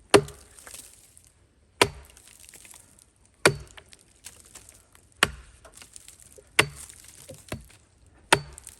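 Axe chopping through a log: six heavy strikes about every 1.7 seconds, each with a short splintering crack, finishing off a partly cut buck.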